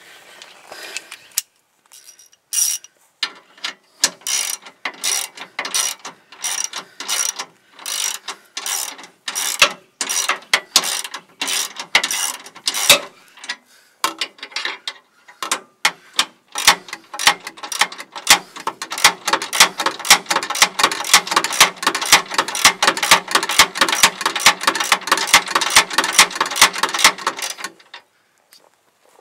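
Hand ratchet wrench clicking in quick back-and-forth strokes, running in bumper mounting bolts. The clicking comes in short bursts at first, then turns fast and nearly continuous about two-thirds of the way in, and stops just before the end.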